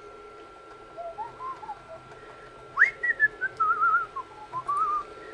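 A man whistling a short wandering tune to himself: a few soft notes, then a quick upward swoop into a run of warbling, falling notes.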